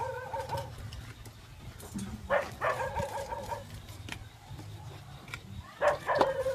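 An animal calling: drawn-out cries held at one steady pitch, each about a second long, repeating about every three and a half seconds.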